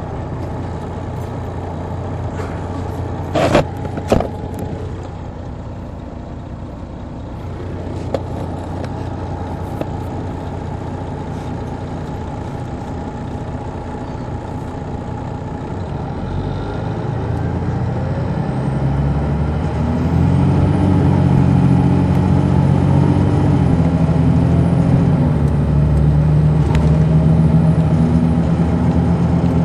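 Detroit Diesel Series 60 diesel engine of a 2002 MCI D4000 coach heard from the back seats, running steadily, with two sharp knocks about three and four seconds in. About two-thirds through, the engine note climbs and grows louder, holding high until near the end.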